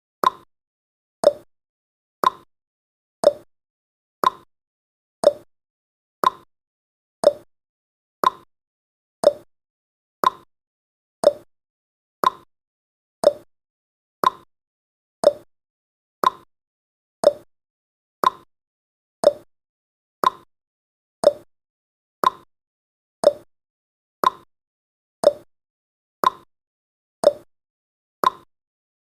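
Clock ticking sound effect of a countdown timer: a sharp tick once a second, alternating between a higher and a lower tick like a tick-tock.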